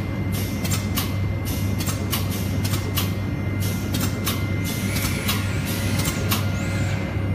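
PCB guide-hole drilling machine running: a steady low hum with sharp clicks about twice a second.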